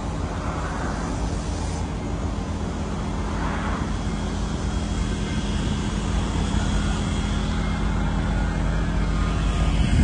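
A vehicle engine drones steadily over outdoor background noise, slowly growing louder.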